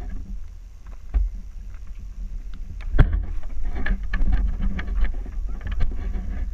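Low rumble of wind buffeting a phone's microphone, with scattered clicks and crunches from handling and footsteps on loose rock. A sharp knock comes about three seconds in.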